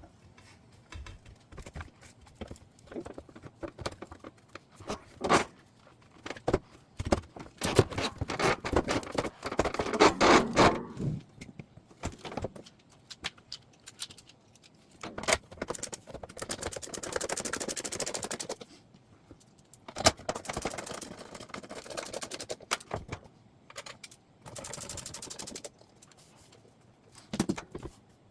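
Dishwasher front panel being fitted back on and clipped into place: many scattered clicks and knocks, with several stretches of scraping, the longest about a third of the way in and again just past the middle.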